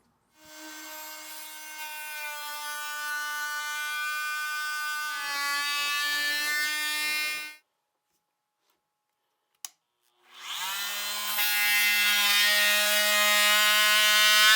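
Festool Vecturo OS 400 oscillating multitool buzzing in two runs. The second run is louder and lower in pitch than the first. Between them there is a pause with a single short click.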